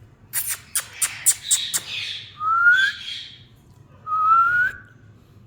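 Parrot vocalising: a quick run of about six short, sharp calls, then two clean rising whistles.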